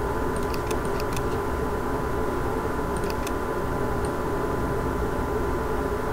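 Steady low hum and hiss of background noise with a thin steady high tone, and a few faint clicks of a computer mouse, in small clusters about a second in, about three seconds in and once about four seconds in.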